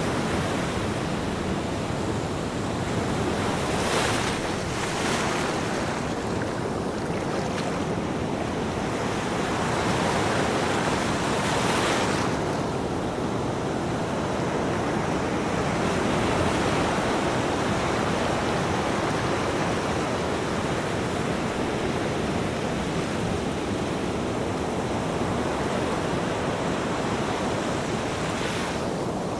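Ocean waves washing onto a beach in a continuous rush of surf, swelling several times as waves break.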